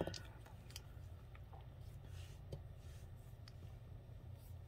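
Faint, scattered small clicks and taps of gel polish bottles and a plastic swatch stick being handled, over a steady low hum.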